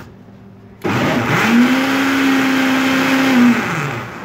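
Electric blender motor switched on about a second in, spinning up quickly to a steady whine, running for about two and a half seconds, then winding down as it is switched off. It is blending flour into crêpe batter of milk, eggs and oil.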